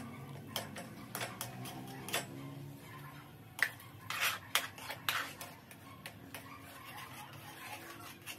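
Metal spoon scraping and clinking against a kadhai while stirring a thick mashed-potato filling, in irregular taps and scrapes.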